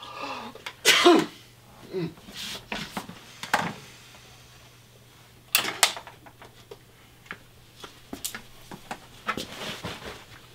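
A man sneezing loudly about a second in, followed by several shorter sharp bursts, then small knocks and rustles as he gets up from a desk and gathers his things.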